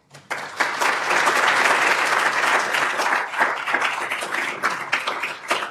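Audience applauding, starting suddenly and thinning to scattered claps near the end.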